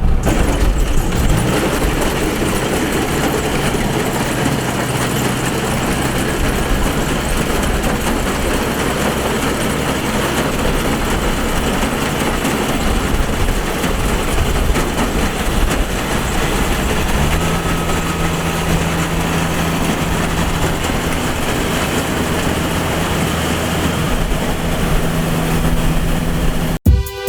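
Kubota DC-70 Plus combine harvester's diesel engine and threshing machinery running steadily while harvesting rice. A new steady hum comes in about two-thirds of the way through, and the sound cuts off suddenly near the end.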